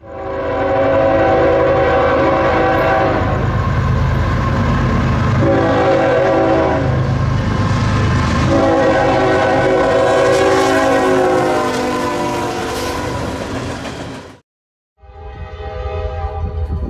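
Diesel freight locomotive's air horn blowing three blasts, long, short, long, over the low rumble of the approaching train. After a brief cut near the end, a horn sounds again more quietly over a rumble.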